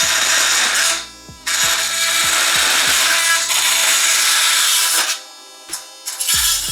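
Oscillating multi-tool with a bi-metal blade cutting a steel stud: a loud, harsh buzz of the blade on metal. It comes in three spells, with a short pause about a second in and another about five seconds in.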